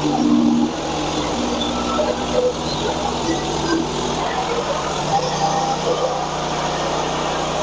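Small gasoline engine of a portable bandsaw mill running steadily under load as the band blade saws through a frozen, knotty hard maple log.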